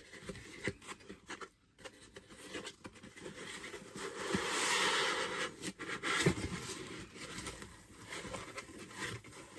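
Cardboard box and packaging being handled and opened: scattered light taps and scrapes, with a longer rustling slide around the middle.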